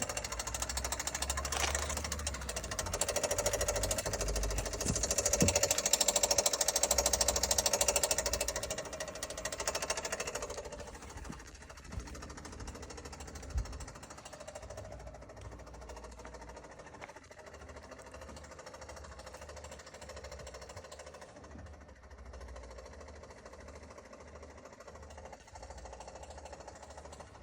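2021 Kia Soul engine running with a rapid mechanical ticking, the noise the owner is complaining of. It is louder for about the first ten seconds, then quieter.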